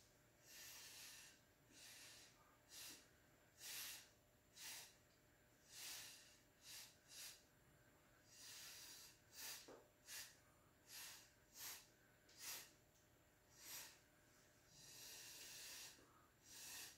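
Faint short puffs of breath blown through a straw onto wet acrylic pour paint, pushing the paint across the canvas. There are about eighteen separate puffs, with a longer, steadier blow near the end.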